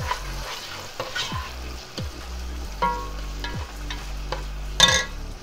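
Chopped onions sizzling in oil in a pot while a spoon stirs them. The spoon knocks against the pot roughly once a second, with the loudest knock near the end.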